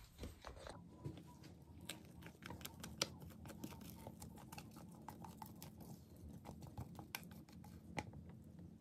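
Faint, irregular clicks and scrapes of a spatula against a mixing bowl as thick cake batter is scraped out into a metal cake tin.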